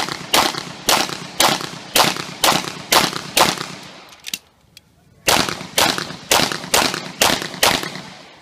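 Handgun shots fired in quick succession, about half a second apart, each followed by a short echo. There is a pause of about a second and a half midway, with one faint click, before a second string of shots.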